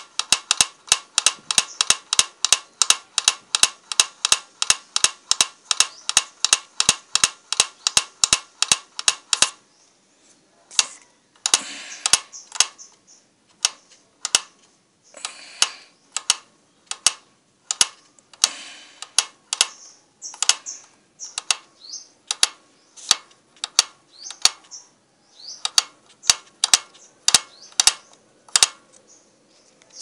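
Sharp mechanical clicking from hand work on a motorcycle engine's opened top end, around the cam chain and sprockets. The clicks come evenly at about four to five a second for the first ten seconds, then turn irregular, with a few short rustling scrapes.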